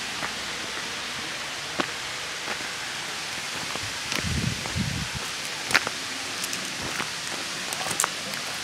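Steady rush of water from the creek's falls, with scattered sharp clicks of footsteps and handling and a brief low rumble about four seconds in.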